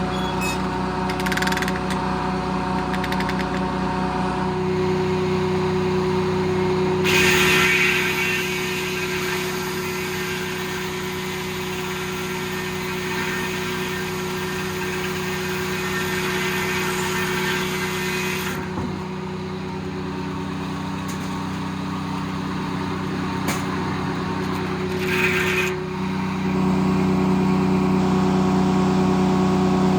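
Circle sawmill driven by a Detroit Diesel engine, running with a steady engine note. From about seven seconds in, for some eleven seconds, a wide rushing noise rises over it as the blade cuts through the log. Near the end the engine speeds up and gets louder.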